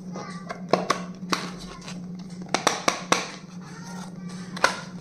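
A handful of sharp clicks and taps from stationery items being handled, in small clusters, over soft background music and a steady low hum.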